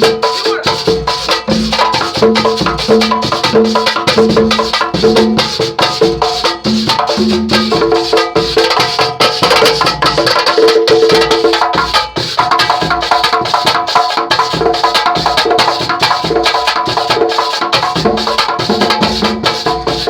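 Percussion group playing a fast, tight swingueira groove: dense, rapid drum strokes run on without a break.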